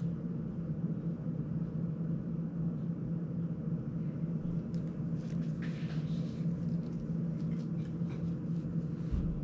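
Steady low electrical hum, with light plastic clicks and rattles in the second half as a GEPRC CineLog 35 cinewhoop frame and its small parts are handled during assembly.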